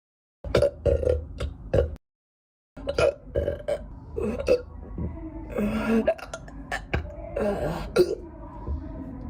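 A person's gassy hiccups: short, sharp hiccups that come out as burps, about five in quick succession, then after a brief break many more, some drawn out into longer voiced burps.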